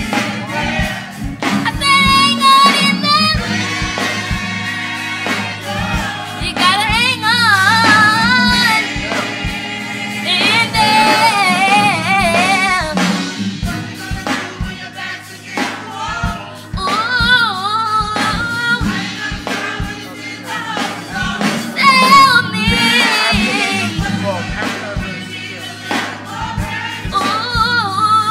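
Gospel choir singing with wavering, vibrato-laden voices over a steady beat.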